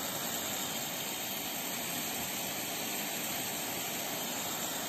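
Water jet from a hose-reel irrigator's rain gun spraying over a field: a steady hiss of spray and falling droplets.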